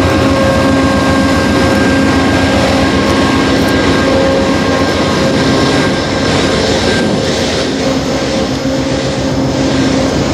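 Amtrak passenger train with its diesel locomotive running close by: a loud, steady engine drone with a low, evenly repeating throb under it.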